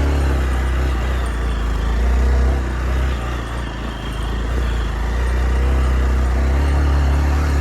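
Hero XPulse 200 motorcycle's single-cylinder engine running steadily while riding, easing off briefly a few seconds in before picking up again.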